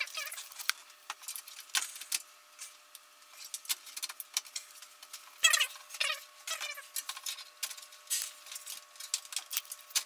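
Irregular light metallic clicks, taps and small rattles as a motherboard and its screws are fitted against the standoffs of a steel PC case, over a faint steady tone.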